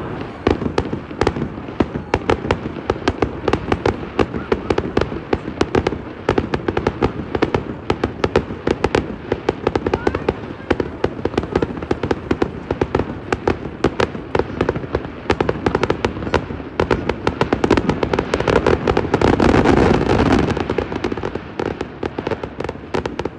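Fireworks display: a dense, continuous barrage of sharp pops and bangs, many a second, swelling louder about three-quarters of the way through.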